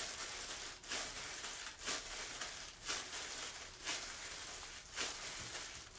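Hands working mugwort rice-cake dough: soft, rhythmic pressing and rubbing noises about once a second over a steady hiss.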